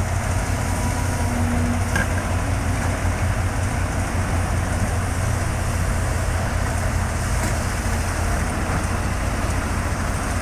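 Diesel engine of heavy earthmoving equipment running steadily, a low even drone.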